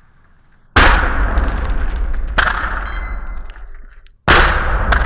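AGG V2 airsoft gas grenade bursting three times, each a sudden loud bang followed by a rush of escaping gas that fades over a second or two. Small metallic clinks and clatters follow as the casing halves and BBs land.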